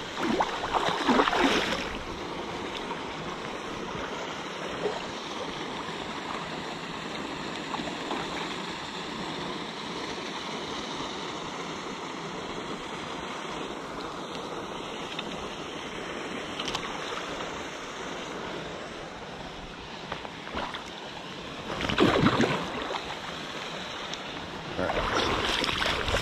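Steady rush of a flowing river, with a burst of splashing about a second in and, near the end, wader boots splashing through shallow water.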